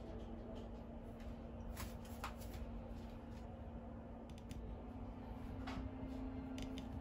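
Quiet room tone: a steady low hum with a faint constant tone, and a few faint light clicks scattered through.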